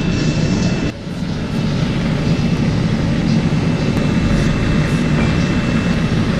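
Loud, steady rushing of an electric blower with a thin high whine over it. The sound dips briefly about a second in, then carries on unchanged.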